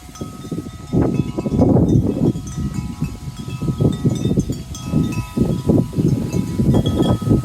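Wind chimes ringing in the wind, several long tones struck again and again and overlapping. Underneath, a loud gusting low rumble of wind buffeting the microphone.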